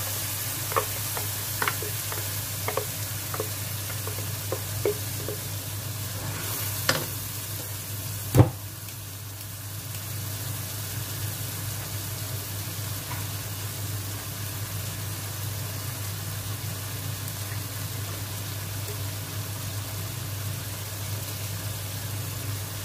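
Chili spice paste sizzling as it fries in oil in a wok, with small sharp pops and clicks through the first several seconds and one louder knock about eight seconds in. A steady low hum runs underneath.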